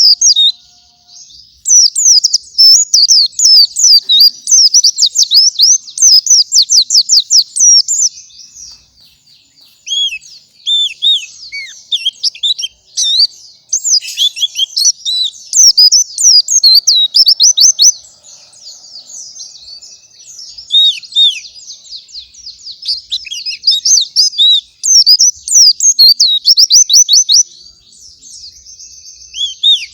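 A white-eye (pleci) singing full-on: long, rapid runs of high, thin chirps and trills, in bursts of several seconds with short lulls between.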